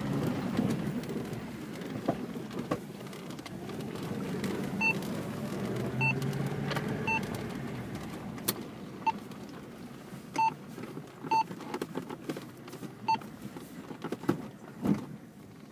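A car driving over a dirt desert track, heard inside the cabin: a steady engine and tyre rumble with scattered knocks and rattles. From about five seconds in, a short electronic beep repeats at irregular intervals.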